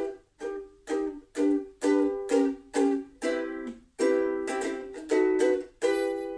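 Ukulele strummed in short, clipped chords, about two strokes a second. The last chord, near the end, is left to ring and fade away.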